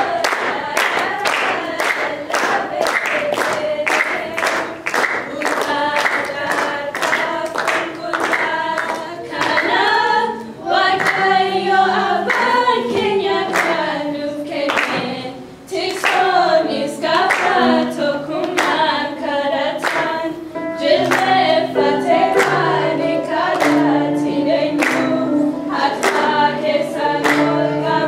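Group of voices singing a worship song together, with hands clapping a steady beat.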